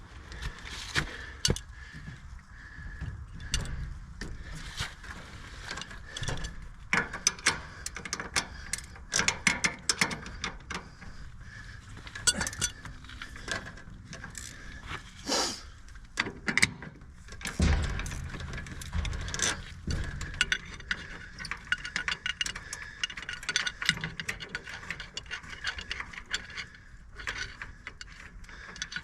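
Ratchet wrench clicking in irregular runs, with metal tools clinking, as bolts are worked on the furnace's circulator pump plumbing.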